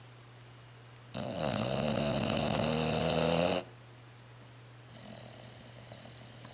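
A sleeping bulldog snoring: one loud snore lasting about two and a half seconds, starting about a second in, then a fainter snore near the end.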